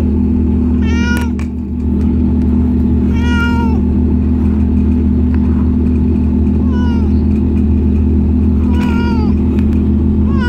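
A domestic cat meowing over and over, about five drawn-out meows that each fall in pitch, roughly two seconds apart, over a steady low hum.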